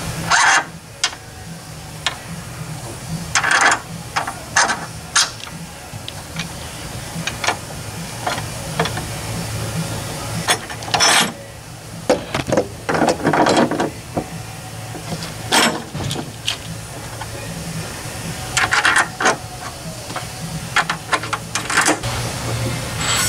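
Irregular metal clinks and clicks of a hand wrench, nuts and aluminium spacers being worked on the studs of a Fox Body Mustang's front strut top mount, over a steady low shop hum.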